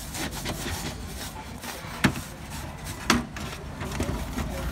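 Handling noises inside an open DVR's sheet-metal chassis: rubbing and light clicks, with two sharp knocks about two and three seconds in.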